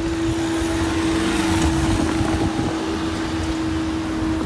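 Railway level crossing barrier's hydraulic power unit humming at one steady pitch while the boom rises, over a low rumble.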